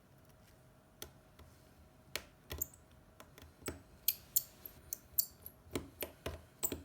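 Irregular small clicks and taps of hand tools and small parts handled on an iPhone 7 during a display replacement, starting about a second in and coming a few times a second toward the end.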